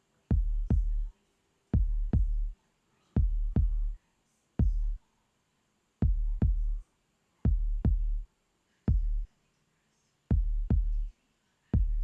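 Neo soul drum loop playing back: deep kick drum hits in a repeating pattern, mostly pairs of kicks, the figure coming round about every three seconds, with little else from the kit.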